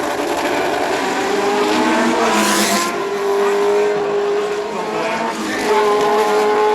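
1970s Formula 1 racing engines at high revs, the pitch climbing and dropping through gear changes, then holding high and steady. A short high hiss comes about two and a half seconds in.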